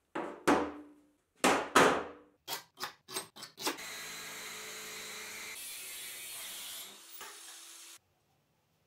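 Several sharp metal clanks as a steel bar is set down and handled on the workbench, then an angle grinder's cutting disc slicing through the flat steel bar with a steady grinding noise that stops suddenly about a second before the end.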